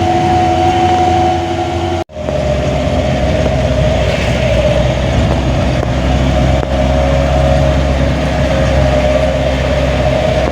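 Engine and running gear of a moving road vehicle, a steady low rumble with a steady whine over it. The sound cuts out for an instant about two seconds in and comes back with a lower whine and a deeper hum.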